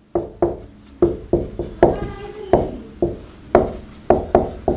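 Marker writing on a whiteboard: a quick, irregular series of taps and scratchy strokes as the letters are written, with a short squeak of the marker tip about two seconds in.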